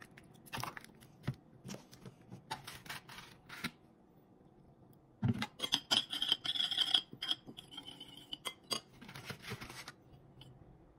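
Metal spoon stirring and scraping against a ceramic bowl of chili and soy sauce, with scattered light clicks and taps; a quick run of louder scraping comes about halfway through.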